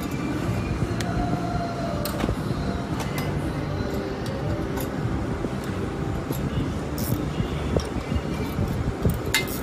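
Metal parts of a tablet press being fitted together by hand: scattered light clicks and clinks, with a quick run of them near the end, over a steady low workshop rumble.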